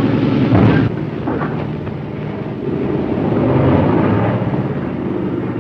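Piston aircraft engine noise from an old film soundtrack: a loud, noisy drone that peaks about half a second in, dips, then swells again around four seconds in.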